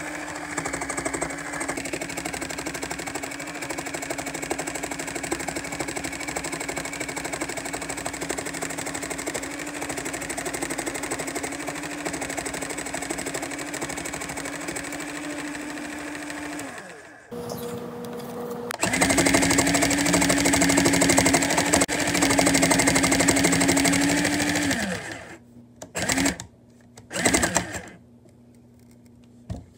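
Cool Maker Sew N Style battery-powered toy sewing machine running as it sews felt, a steady motorized hum. It stops a little over halfway, starts again about two seconds later and runs louder for several seconds, then stops, with two brief bursts near the end.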